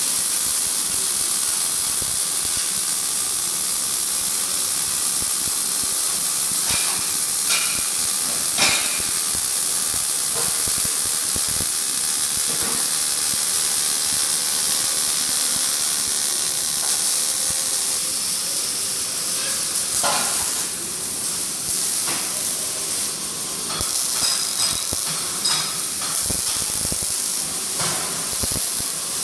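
Robotic MIG welding arc: a steady sizzling hiss with crackling spatter, and a few sharper pops.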